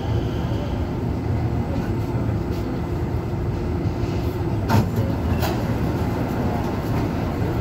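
Steady low hum of a metro train standing at a station platform, its onboard equipment running. About five seconds in come two sharp clicks a little over half a second apart.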